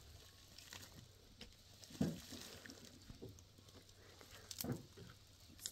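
Footsteps, scraping and rustling on loose stones and dry brush, with scattered knocks of stones or sticks. The loudest knock comes about two seconds in, and another a little before the end.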